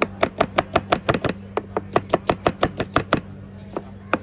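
Knife chopping rapidly on a cutting board, about six even strokes a second, which stops about three seconds in and is followed by a couple of single strokes.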